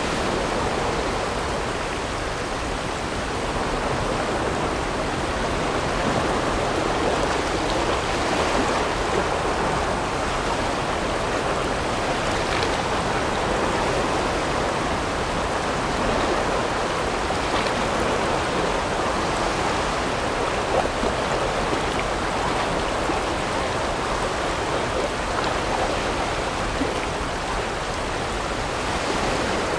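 Steady rushing of the Barron River's water around the rafts, with a few faint splashes now and then.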